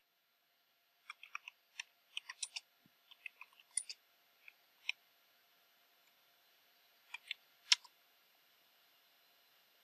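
Quiet computer keyboard keystrokes as a shell command is typed: a quick run of key clicks, a pause, then a few more near the end, one of them the loudest.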